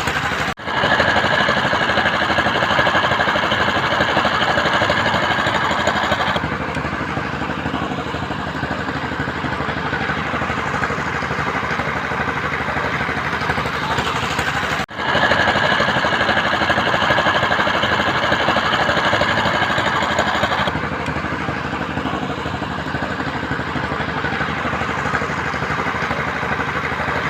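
Construction machinery engine running steadily, with two brief cut-outs where the footage is edited.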